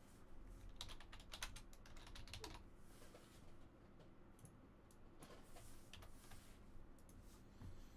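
Faint clusters of quick light clicks and taps, in runs like typing on a computer keyboard.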